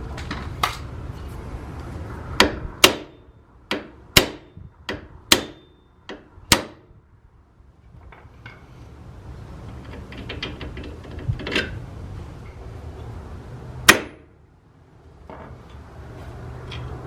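A series of sharp metal-on-metal strikes, about eight in four seconds, some ringing briefly, then a few more spaced out, with one loud strike near the end: tool work on the car's suspension during a strut and coilover swap, over a low steady rumble.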